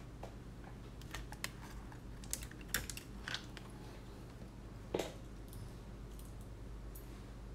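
Scattered light clicks and taps of small plastic and metal drone parts and tools being handled on a workbench, with a louder knock about five seconds in, over a steady low hum.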